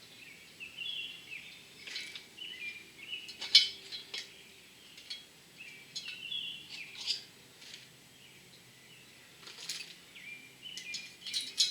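Scattered light metal clinks and taps, sharpest about three and a half seconds in and bunching near the end, as valve spring parts and the spring compressor are handled on an engine cylinder head with the keepers already out. Birds chirp faintly in the background.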